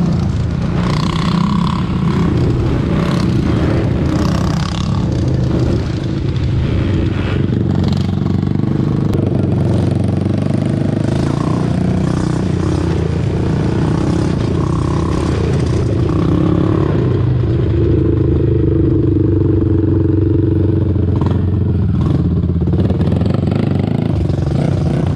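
Yamaha Raptor 700 sport ATV's single-cylinder engine running under way on trails, the engine note shifting up and down with the throttle.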